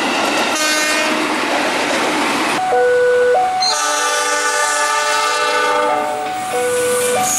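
A KRL commuter electric train passing, its horn sounding over the running noise and wheel clatter. About two and a half seconds in, the train noise drops away and a tune of held tones stepping between two pitches takes over.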